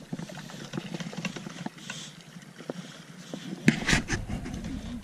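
Shimano Nasci 4000 spinning reel being cranked, with scattered clicks of rod and reel handling and one louder brief rustle a little under four seconds in.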